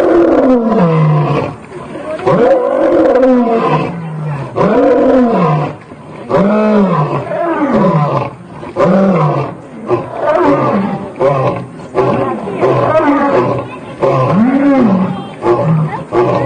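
Lion roaring: a loud series of about ten deep calls, each rising and then falling in pitch, repeating roughly every second and a half.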